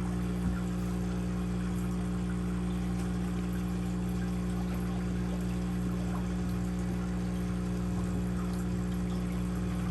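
Aquarium pump humming steadily while water pours and splashes into the tank.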